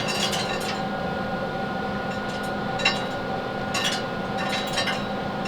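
Yoder YS640S pellet smoker running just after start-up: a steady hum from its fan and auger motor, with a few light clicks, as pellets begin feeding into the burn pot.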